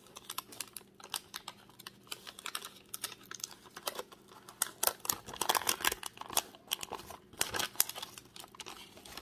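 A small stack of 1976 Topps trading cards being handled and thumbed through: a fast run of light card-stock clicks and paper rustles, busiest and loudest around the middle.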